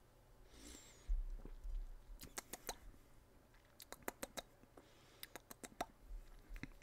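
Faint mouth sounds of someone tasting a drink: a short breath out, a low thud about a second in, then several quick runs of sharp wet clicks from lips and tongue smacking.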